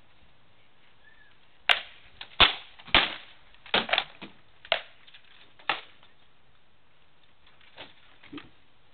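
Armoured sparring: a flurry of about ten sharp clashing strikes as weapons hit shields and armour, bunched over about four seconds starting nearly two seconds in, followed by a couple of lighter knocks near the end.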